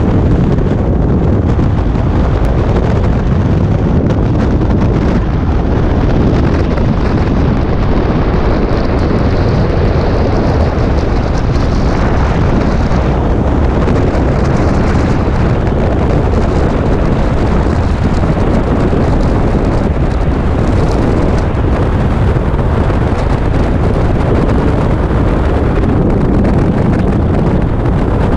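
Freefall wind rushing over the microphone of a skydiver's camera: a loud, steady, unbroken rush of noise, heaviest in the low end.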